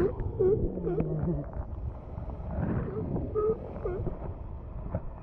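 Galapagos sea lion barking: a quick run of short barks, about two a second, at the start, thinning out to a few scattered barks later on. These are the calls of a territorial sea lion that has just chased a snorkeller out of the water.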